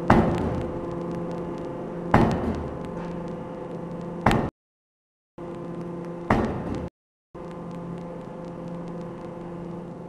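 5-ton hydraulic open die forging hammer striking a red-hot steel workpiece, four heavy blows about two seconds apart over a steady machine hum. The blows stop after about six and a half seconds, leaving the hum.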